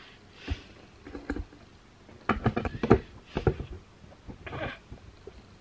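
Handling noise from a compact camera and its tabletop tripod being moved and adjusted: a few single taps, then a quick cluster of clicks and knocks about two to three and a half seconds in, and one more knock near the end.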